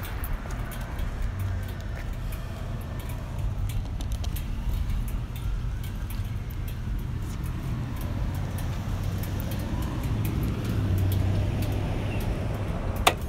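Road traffic going by: a steady low rumble with cars passing, their noise swelling and fading. A single sharp click comes near the end.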